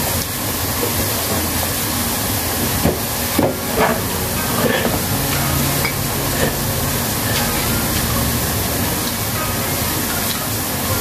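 Steady, even hiss throughout, with a few faint short clicks.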